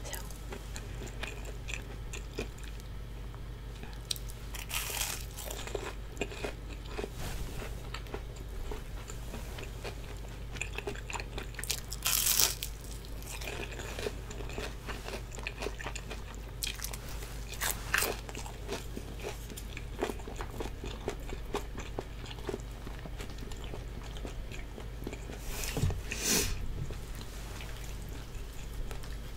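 Close-miked crunchy bites and chewing of breaded Korean fried twigim, with a handful of louder crunches spread through and small crackles between them. A steady low hum sits underneath.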